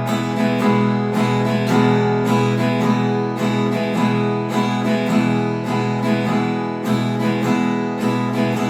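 Concert guitar strummed in a steady western strumming pattern: an accented downstroke, a short break, then lighter quick strums, repeating evenly.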